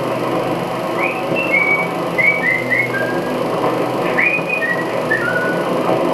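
A scattering of short, high whistled notes, many sliding in pitch, over a steady dense background noise, heard through a Super 8 film print's optical soundtrack.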